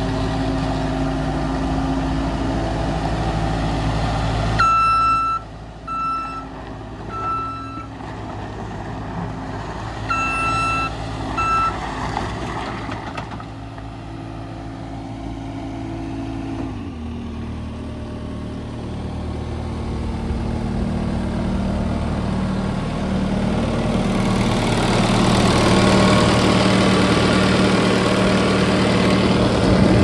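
Case SV300 skid steer's 90 hp diesel engine running steadily. A backup alarm sounds in a short run of uneven beeps from about five to twelve seconds in. The engine note shifts a little after the middle and grows louder toward the end.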